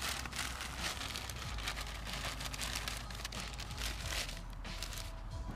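Paper crackling and crinkling as it is fed into a small fire in a metal fire pit and catches, a dense run of fine snaps throughout.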